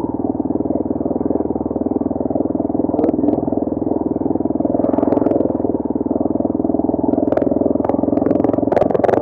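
Motorcycle running steadily while being ridden, heard as a thick, muffled drone. Scattered sharp clicks and knocks come through, around three seconds in, around five seconds in, and several more near the end.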